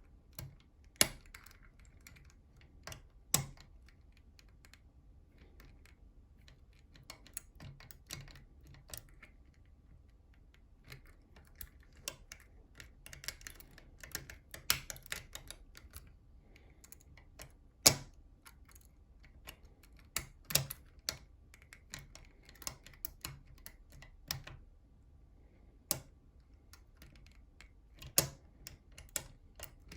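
Picking tools working inside a NATO Mersey 10-lever lock: irregular small metallic clicks and ticks, with a few sharper, louder clicks scattered through.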